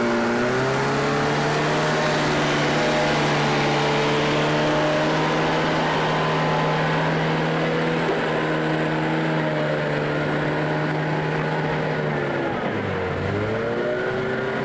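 Log skidder's diesel engine running steadily over a constant rushing noise; its revs step up about half a second in and drop briefly near the end before picking up again.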